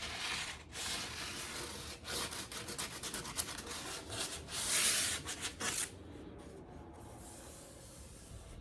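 Sandpaper rubbed back and forth by hand over a primed MDF drawer front, smoothing the rough coat between coats of primer; irregular scratchy strokes that stop about six seconds in.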